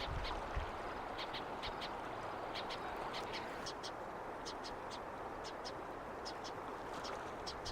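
Outdoor ambience: a steady rushing hiss under short, high chirps from a small animal, repeating irregularly about once or twice a second.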